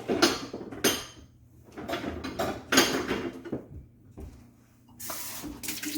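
Kitchen dishes and utensils clattering and knocking while excess water is dipped out of a pitcher of lemonade, with a short rushing noise about five seconds in.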